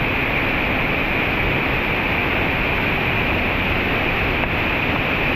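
Whitewater rapids and falls rushing in a steady, unbroken noise.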